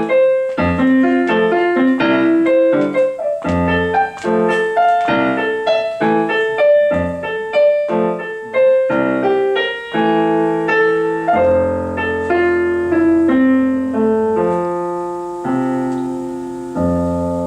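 Solo piano playing the closing bars of a pop song: quick repeated notes and chords that slow into long held chords in the second half, with a final chord struck near the end and left to ring.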